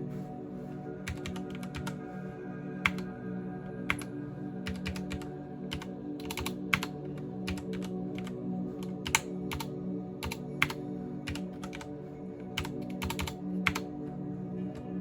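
Typing on a CM Storm XT mechanical keyboard: a steady run of irregular key clicks, with a few louder key strikes standing out, over quiet background music.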